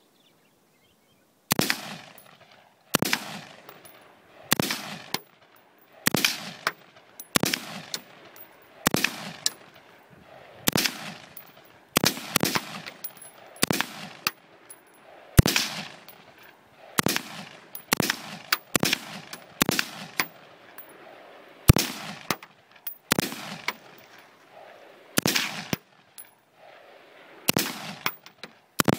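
Homebuilt AR-15 semi-automatic rifle firing a steady string of single shots, about one every second and a half, each crack with a short echoing tail. It is the rifle's first firing, and it keeps cycling shot after shot without a stoppage.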